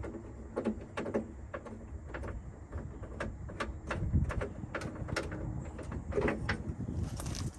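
Irregular clicks and knocks of tools and metal parts being handled inside a truck door, with a low background rumble.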